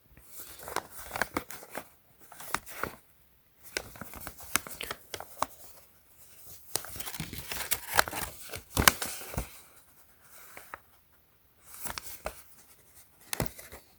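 Crinkling and rustling of packaging being handled, in several bursts with sharp crackles and short pauses between them.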